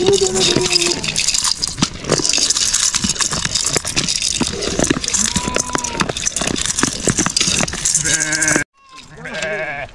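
A flock of sheep bleating over a steady clatter of small clicks and rattles. The sound cuts off abruptly about nine seconds in, then comes back.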